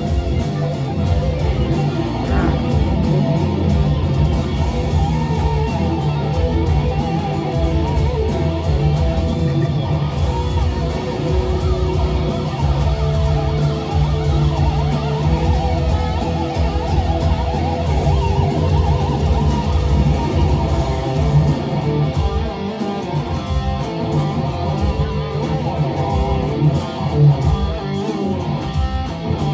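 Two electric guitars playing loud, distorted rock together in rehearsal.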